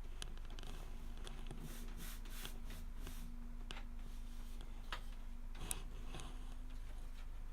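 Scattered light clicks, taps and rubbing of hands handling computer parts, over a steady low electrical hum.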